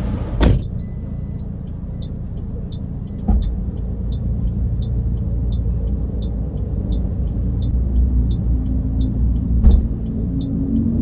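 Car sounds with the engine running: a door shuts just after the start, and the indicator or hazard flasher ticks about three times a second. There is a thump about three seconds in and a louder bang near the end as things are handled at the back of the car, the loudest being the boot lid shutting.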